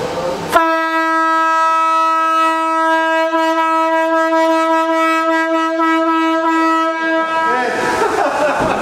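One long, steady horn note on a single pitch. It starts abruptly and holds for about seven seconds before fading out near the end.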